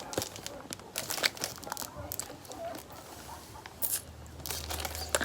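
Rustling and crinkling handling noise with scattered light clicks and knocks as things are moved about; a low hum comes in about four seconds in.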